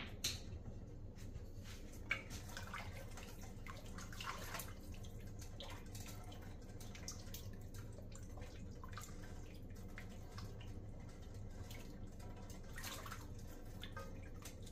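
Vegetable broth sloshing faintly in a pot as a spoon stirs it, with scattered light clicks of the spoon against the pot over a steady low hum.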